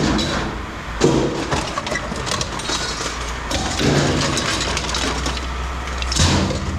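Scrap metal pieces clanking and clattering as they are handled and tossed while being sorted, with a steady low hum beneath.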